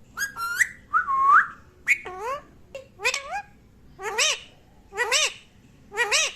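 Pet parrot whistling a short rising-and-falling note over and over, about once a second.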